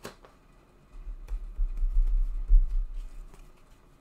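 Cards and a pair of scissors being set down on a tabletop: a sharp click at the start, then a low rumble through the table for about two and a half seconds with a few light taps.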